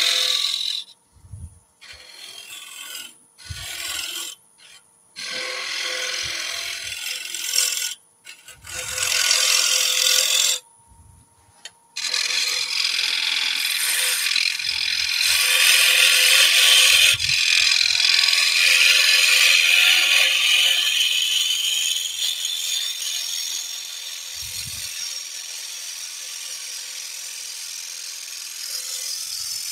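Small woodturning gouge cutting the knob of a spinning wooden lid on a lathe, a hiss of shavings coming off the wood. There are several short cuts with pauses over the first dozen seconds, then one long continuous cut that grows quieter in the last third.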